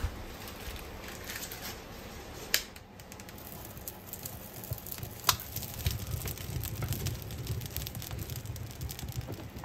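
Kindling fire in an open wood stove catching and crackling, with scattered sharp pops and snaps over a low rustle of flame as sticks are pushed into it.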